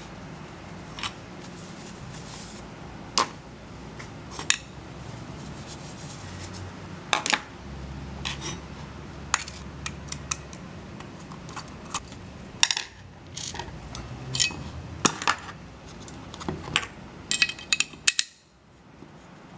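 Sharp metallic clinks and knocks, many of them at irregular intervals, as metal tools or parts are handled, over a low machine hum that shifts in places and drops away near the end.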